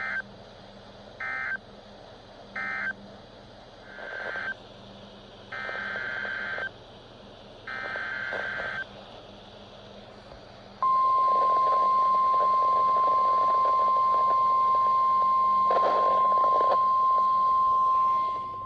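NOAA Weather Radio EAS signalling. First come three short bursts of SAME digital data (the end-of-message code closing the previous warning), then three longer warbling SAME header bursts, then the steady single-pitch 1050 Hz warning alarm tone for about seven seconds, announcing a new severe thunderstorm warning. It all plays over faint radio hiss.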